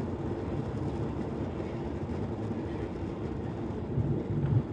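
Jet engines of a Ryanair Boeing 737 at climb power, heard inside the passenger cabin as a steady low noise, with a brief louder low bump about four seconds in.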